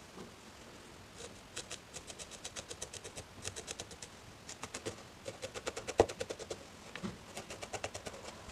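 A 38-gauge barbed felting needle stabbing rapidly into core wool wrapped around a pipe cleaner, giving soft, crisp pricks about five or six a second while the wool is felted down. One louder knock about six seconds in.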